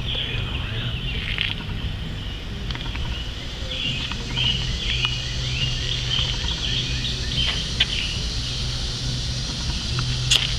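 Outdoor backyard ambience: many short, high chirps repeating over a steady low hum, with a couple of sharp clicks near the end.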